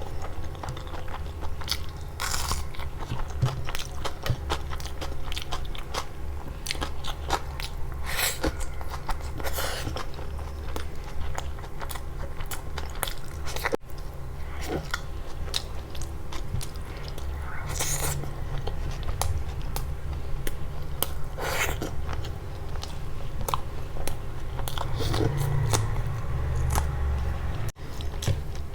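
Close-miked eating: a person biting and chewing food, with many irregular crunches, over a steady low hum.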